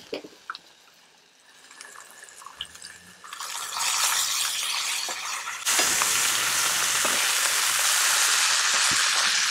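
Bacon strips and a burger patty frying on a hot flattop griddle, a steady sizzle. It is faint at first with a few light clicks, swells about a third of the way in, and jumps louder just past the middle.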